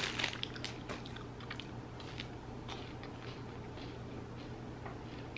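Plastic snack wrapper crinkling briefly at the start, then soft crunching and chewing of a Nutty Buddy wafer bar in the mouth, as scattered small crunches.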